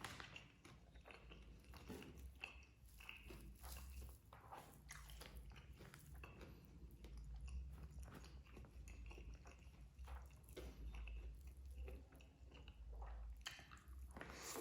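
Faint, close-up sounds of a person chewing and biting into nasi padang, with many short crunchy clicks and mouth noises through it and a steady low hum underneath.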